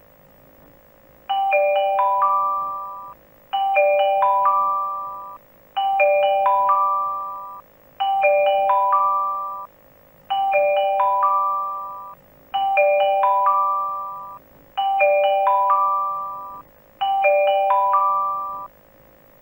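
A bell-like mallet chime of four notes struck in quick succession and left to ring out, repeated eight times at a steady pace of about one every two and a quarter seconds, each ring fading away before the next.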